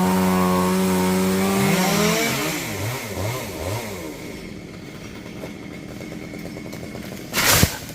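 Two-stroke chainsaw revved up and held at full throttle for about two seconds, then let off, blipped a few times and dropped back toward idle. A short loud crack or thump near the end.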